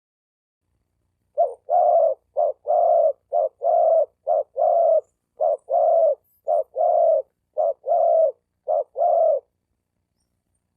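Male spotted dove cooing: eight paired notes, each a short hoot followed by a longer one, about one pair a second, starting about a second and a half in and stopping near the end. This is the male's call used to lure females.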